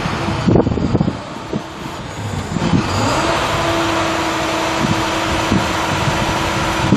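International 7400 bucket truck's MaxxForce DT 7.6 L inline-six turbo diesel running, with wind buffeting the microphone. About three seconds in, a steady whine comes in and holds.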